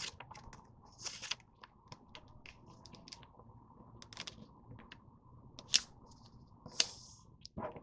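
Sheet of printer paper being folded and creased by hand into a paper airplane wing: soft rustles and crinkles, with a few sharper crinkles about a second in and again toward the end.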